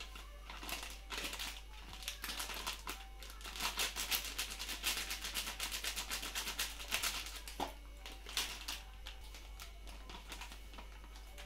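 Plastic spice packet crinkling and rustling in quick rapid clicks as coriander powder is shaken out of it into a glass jar, busiest through the middle of the stretch.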